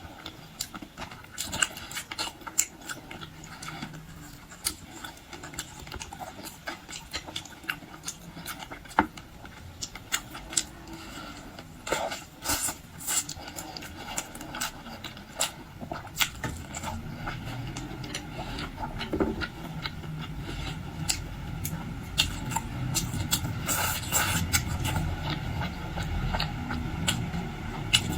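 Close-miked eating sounds: irregular wet clicks, smacks and crunches of chewing seafood and handling food, with a low rumble growing louder in the second half.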